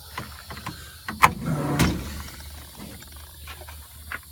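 Metal tool chest drawer sliding on its runners with a rattle, a sharp click just before it and a knock as it comes to a stop, then a few light clicks of tools being handled.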